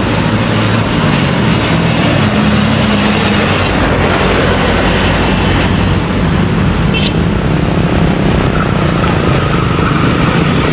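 Diesel-electric locomotive running close by: a loud, steady engine drone over a broad rumbling noise.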